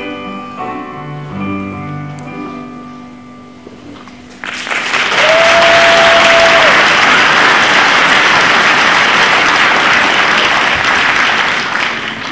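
The final held chord of a choir-and-piano song fades away. About four and a half seconds in, an audience breaks into loud applause, with one long whistle a second into the clapping, and the applause tails off near the end.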